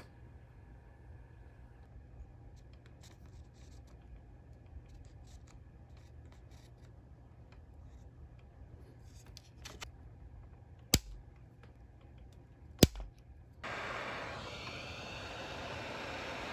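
Light ticks and scraping of soldering work, then two sharp snips about two seconds apart, typical of flush cutters clipping component leads. Near the end a heat gun switches on and blows with a steady hiss, aimed at the board to soften the glue holding the larger electrolytic capacitors.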